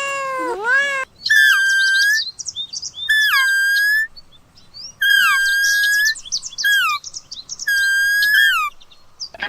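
A cat meowing for the first second, then four phrases of bird chirping about two seconds apart. In each phrase a held whistled note hooks downward at its end, with quick high twitters above it.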